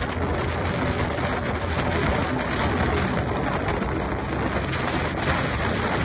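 Steady wind rushing and buffeting over a phone's microphone, a rough, even noise with a heavy low rumble.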